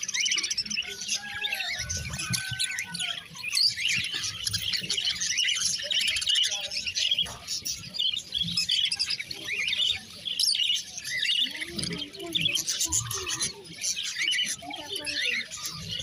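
A cage full of budgerigars chirping and chattering, many short overlapping calls at once without a break.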